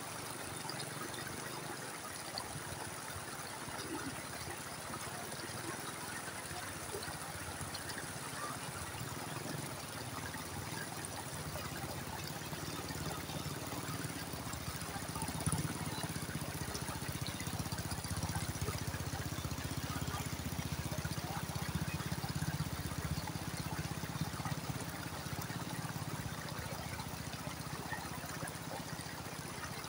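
Shallow creek water flowing and trickling steadily over and between rocks.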